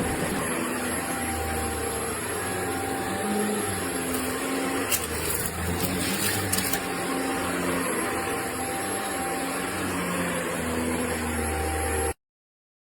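Shark NZ801UKT upright vacuum cleaner running steadily, with a high, steady whine over its motor noise and a few short clicks in the middle. It cuts off abruptly near the end.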